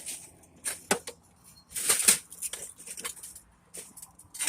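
Irregular rustling, scraping and light clicks of hands handling scrap TV parts, with the loudest rustle about two seconds in.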